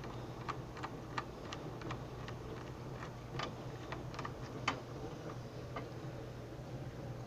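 Small, irregular clicks and ticks of a screwdriver and screws working against a PS4 Slim's plastic and metal parts, about a dozen over a few seconds, the sharpest about four and a half seconds in, over a steady low hum.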